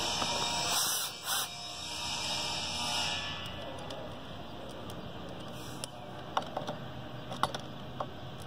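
Cordless drill/driver running as it drives a screw on the pump motor's terminal block, stopping about three seconds in, followed by a few small clicks.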